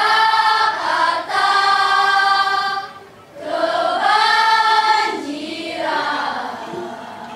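Children's choir singing, holding long chords in two phrases with a brief pause about three seconds in; the second phrase trails off softer near the end.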